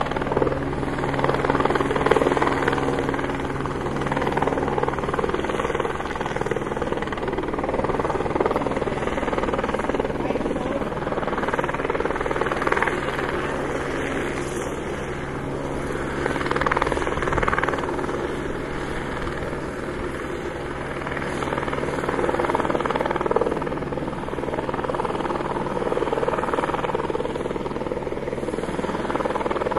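Military police helicopter flying past and circling, its rotor and engine running steadily and swelling and fading in loudness as it moves.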